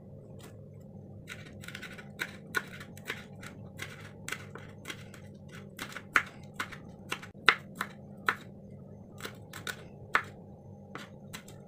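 Kitchen knife chopping shallots and chilies on a wooden cutting board: irregular sharp taps of the blade striking the board, about two a second, some much louder than the rest, over a low steady hum.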